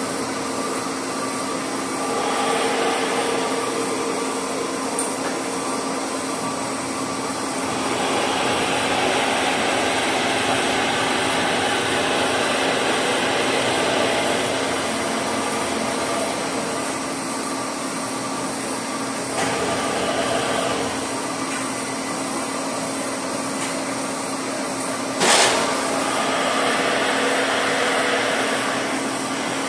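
Horizontal boring mill running with a drill turning in its spindle: a steady hum, with several stretches of louder drilling noise as the bit works, and one sharp click near the end.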